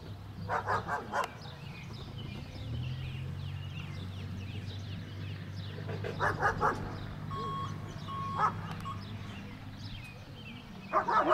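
A dog barking in quick bursts of three or four barks, repeated several times, over a low steady engine hum and faint bird chirps.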